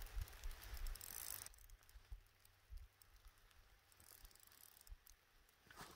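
Near silence: faint wind on the microphone for about the first second and a half, then faint scattered clicking from an ice-fishing reel being wound in.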